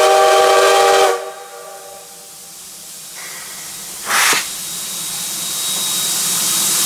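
Steam locomotive C108 blowing its whistle, which cuts off about a second in, followed by steam hissing. A short, sharp blast of steam comes about four seconds in, and the hiss then grows steadily louder toward the end.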